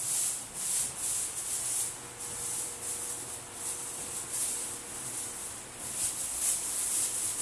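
Clear plastic bag crinkling and rustling in irregular bursts as it is pulled down over a person's head and settled around the neck.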